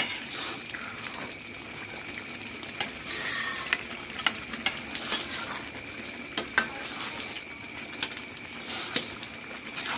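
Metal ladle and spatula scraping and knocking against steel woks while thick chilli sauce is stirred and cooked down to thicken, giving irregular sharp clinks about a dozen times over a soft, steady sizzle of the cooking sauce.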